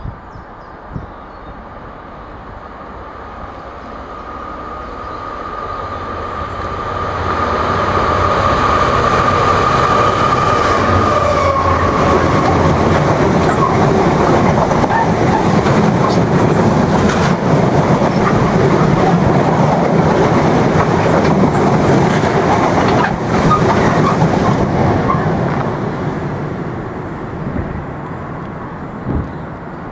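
A Class 66 diesel-electric freight locomotive with a two-stroke V12 EMD engine works hard under acceleration. It builds as it approaches, and its tone drops as it passes about 11 seconds in. A long rake of bulk tank wagons then clatters over the rails before the sound fades away near the end.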